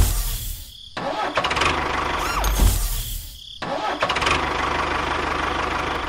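Tractor engine sound running and revving, with a short whistle that rises and falls about two seconds in. It drops out abruptly twice, just before one second and at about three and a half seconds in, then picks up again.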